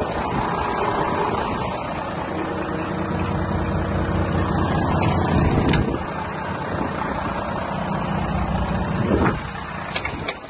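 Volvo FM420 tractor unit's 13-litre six-cylinder diesel engine idling steadily, with a few sharp clicks near the end.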